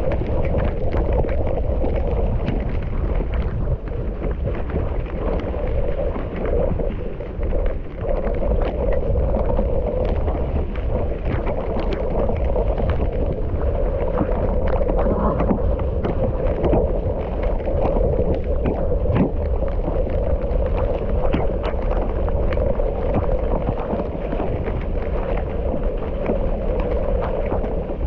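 Wind buffeting an action camera's microphone while riding a mountain bike on a dirt trail, with frequent sharp knocks and rattles from the bike over bumps.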